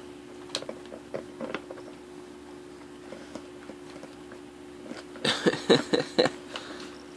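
A large dog chewing and licking at a clear plastic bottle to get the peanut butter out, the plastic crackling under its teeth and paws: a few scattered clicks at first, then a loud run of crackles about five seconds in.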